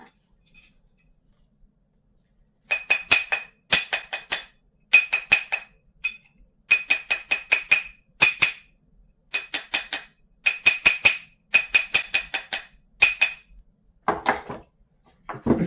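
Steel jewelry hammer tapping a soldered silver wire frame flat on a steel anvil, in quick bursts of several ringing metallic clinks, about ten bursts in all.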